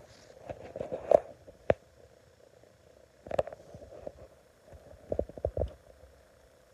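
Ceiling fan clattering and knocking in three rough bursts over a faint steady hum, as it is being wrecked.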